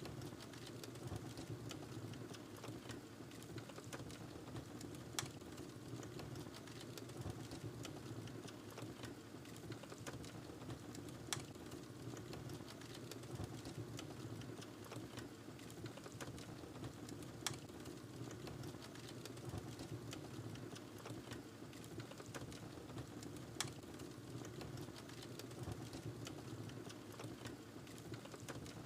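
Wood fire burning in a fireplace: a steady soft crackle and hiss of small ticks, with a sharp pop about every six seconds.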